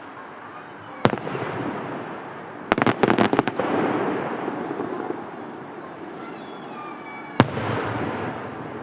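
Aerial fireworks bursting: a sharp bang about a second in, a quick run of five or six cracks around three seconds, and another bang near the end, each followed by a rumbling echo.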